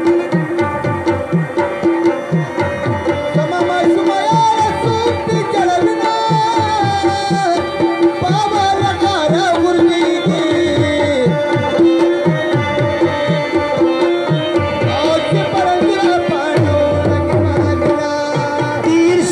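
Live Pashto folk music: tabla drums beating a steady rhythm under a held drone and a melody line that bends up and down.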